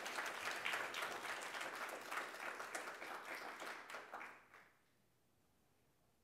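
Audience applauding, many hands clapping at once, dying away about four and a half seconds in.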